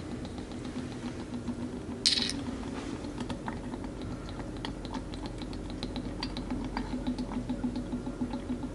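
Small metal clicks and clinks of tools and parts being handled during a motorcycle oil change, several a second, with one louder scrape or clatter about two seconds in.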